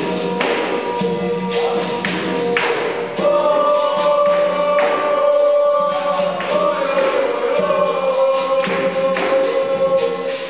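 Capoeira roda music: berimbaus and a pandeiro keep a steady rhythm while a group sings in long held notes.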